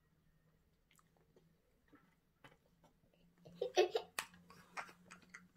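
A few faint clicks and taps, then about three and a half seconds in a young girl bursts out laughing, loud at first and breaking into shorter bursts.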